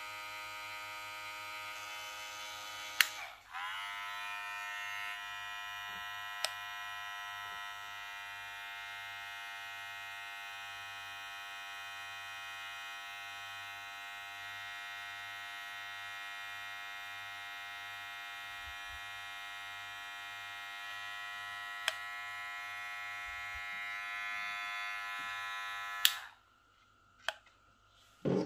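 Cordless metal-body electric hair clipper running, a steady motor whine. About three seconds in a click stops it and the whine winds down, then it starts up and runs again. Near the end a sharp click switches the motor off.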